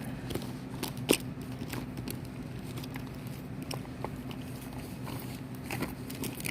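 Steady low hum with scattered short clicks and taps, the sharpest about a second in.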